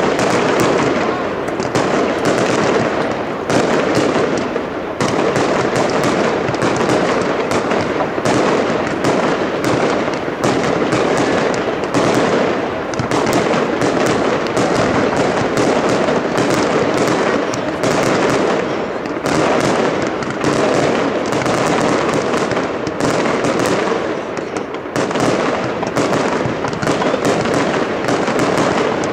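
Fireworks display: a dense, continuous barrage of launches, bangs and crackling, with sharp reports following one another almost without pause.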